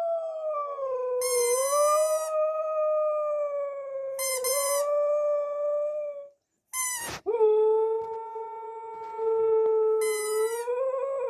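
Siberian husky howling in long, drawn-out notes that waver slightly in pitch, breaking off briefly about six seconds in before a second long howl. Short, higher, brighter notes sound over the howl several times.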